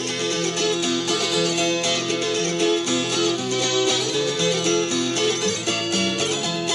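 Instrumental traditional Appalachian string-band music: a mountain dulcimer melody over plucked acoustic guitar backing, playing steadily with a moving line of low notes.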